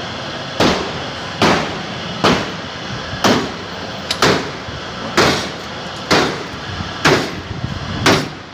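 Hammer blows on car body sheet metal during dent work, about nine evenly paced strikes close to one a second, each ringing briefly, over a steady workshop hum.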